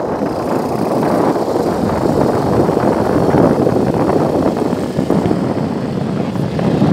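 Wind buffeting the microphone of a handheld camera on a moving bicycle: a loud, steady rushing with no clear pitch.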